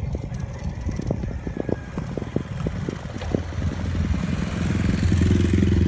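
A motor vehicle's engine hums low and grows louder toward the end, as it comes close. Light clicks and rattles come in the first half.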